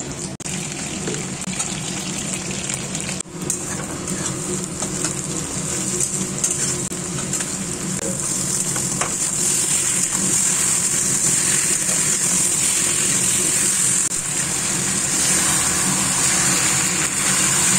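Oil sizzling in a metal kadai as potatoes and then marinated chicken with onions fry, a steady hiss that grows louder through the later part, with two brief dropouts near the start.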